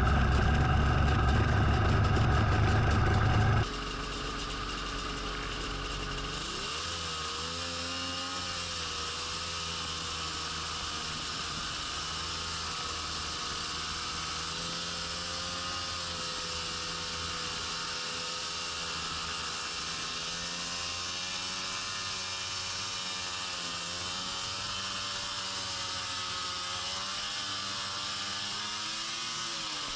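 Snowmobile engine running loudly and steadily at first, then, after a sudden cut a few seconds in, quieter as the sled is ridden, its pitch wavering gently up and down with the throttle under a steady hiss.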